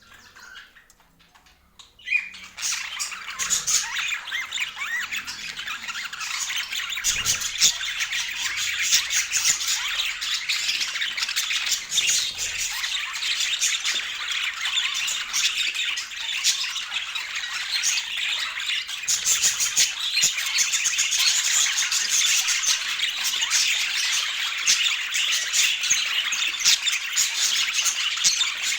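A flock of small birds chattering and squawking together in a dense, unbroken chorus of quick chirps, starting suddenly about two seconds in.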